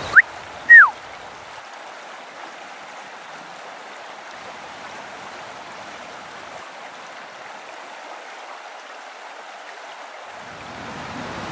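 Steady rush of a stream, opening with two short, loud whistled notes, the second sliding down in pitch. The rushing grows louder and fuller near the end.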